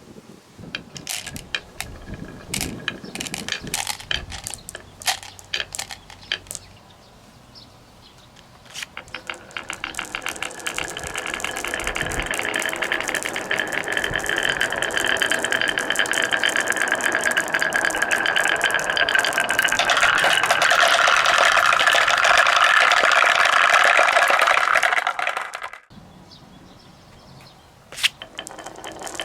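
Marbles rolling and clacking down wooden marble-run tracks. At first there are scattered clicks. From about a third of the way in, many marbles at once make a dense, continuous rattle that grows louder, then stops suddenly near the end, followed by a single click.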